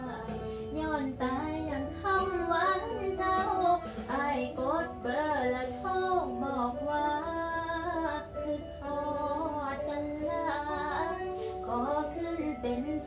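A young woman singing a Thai song with Isan-dialect lyrics, in phrases whose pitch slides and bends.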